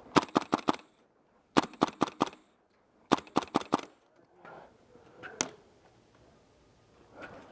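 Airsoft rifle firing three quick bursts of about five shots each, then a single shot about five and a half seconds in.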